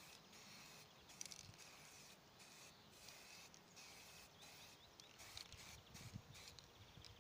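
Faint aerosol spray-paint can hissing in short bursts of about a second each, with brief gaps between sprays, as a primer coat goes on a flower pot.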